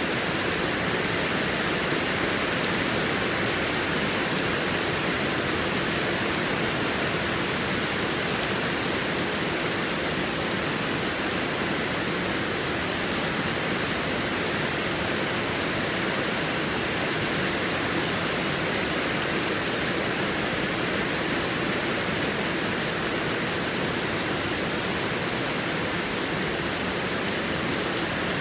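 Heavy rain falling steadily, an even hiss with no breaks or thunder.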